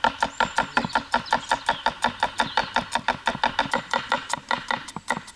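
Knife chopping fast and evenly on a cutting board, about seven strokes a second, each stroke a sharp knock with a short ring.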